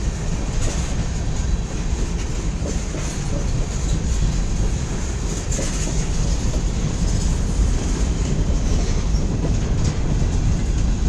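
Freight cars of a long mixed-freight manifest train rolling past, a steady, unbroken rolling noise heaviest in the low end, with faint scattered clicks of wheels over the rails.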